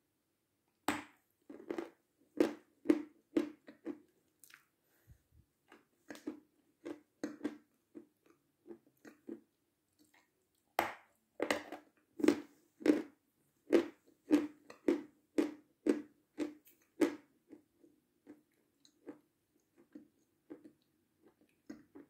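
Close-up crunching and chewing of hard, dry meringue: a run of crisp crunches about a second in, a louder run from about eleven seconds, then softer chewing toward the end.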